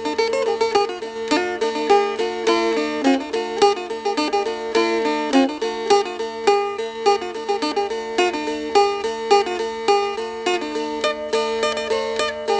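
Instrumental background music led by a plucked-string instrument picking rapid notes over a sustained low drone note.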